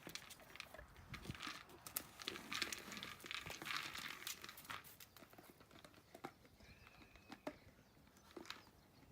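Dog nudging a plastic Kong Wobbler treat toy around: treats rattling inside and the toy knocking on the floor in quick clusters, thinning out to scattered knocks in the second half.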